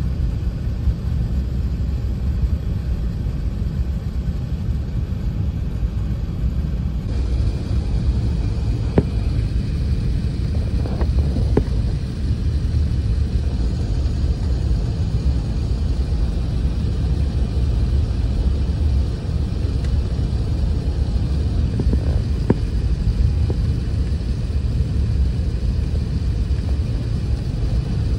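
Steady low rumble inside an Airbus A380's cabin at a window seat over the wing, from the engines and airflow as the airliner descends on approach. The sound shifts abruptly about seven seconds in.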